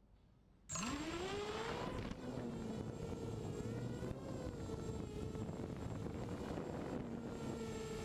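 Diatone FPV250 quadcopter's motors spinning up from silence about a second in, their whine rising quickly in pitch, then running steadily as it flies low, the pitch wavering slightly.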